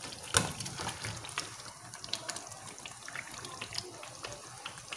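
Fried chicken pieces tipped from a bowl into a pan of frying masala, landing with one thump about half a second in. After that the masala sizzles and crackles in the oil, a steady hiss with many small pops.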